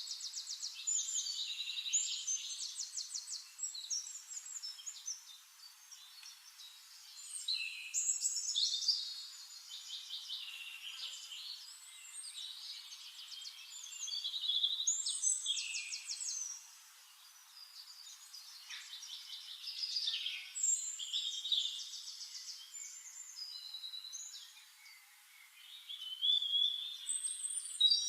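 Songbird singing long, varied high-pitched phrases of rapid trills and whistles. A new phrase starts every several seconds, with quieter song in between.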